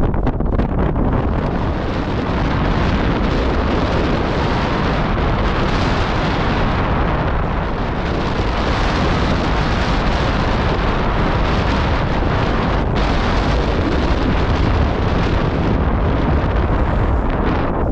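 Strong, gusty wind buffeting the microphone: a loud, unbroken rush with a deep rumble underneath.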